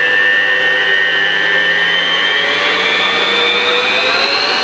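Electric stand mixer motor running with its flat beater turning through cake batter, a steady whine that rises in pitch from about halfway through as the speed is turned up from low.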